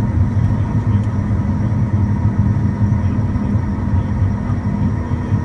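Jet aircraft heard from inside the cockpit while taxiing on the runway: a steady low rumble of engines and rolling wheels with faint constant whine tones above it.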